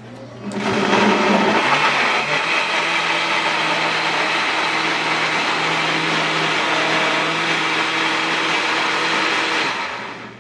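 Breville Bluicer blender motor starting up about half a second in and running steadily on its smoothie program, blending a full jug of red beet juice, then winding down near the end.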